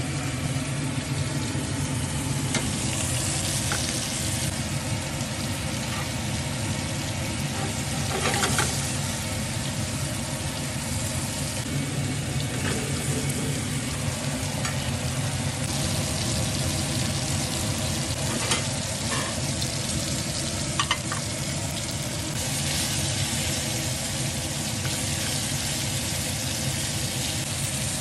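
New York strip steaks searing in hot fat with garlic cloves in a stainless steel frying pan: a steady sizzle, with a few short clicks now and then.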